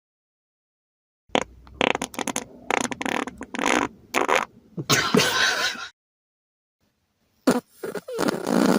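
Juicy, wet farts: a sputtering run of many short blasts lasting about four and a half seconds, then after a pause two quick pops and the start of a longer, pitched, wavering fart near the end.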